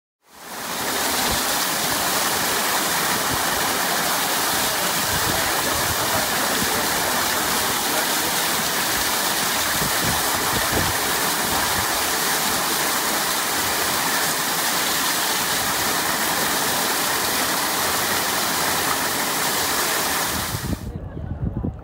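Artificial waterfall pouring onto a bather and into a pool, a loud steady rush of falling water that fades in at the start and cuts off near the end.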